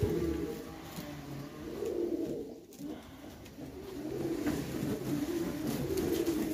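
Black double-crested pigeons cooing: repeated low coos come in bouts near the start, about two seconds in, and again from about four seconds on, with calls overlapping at times.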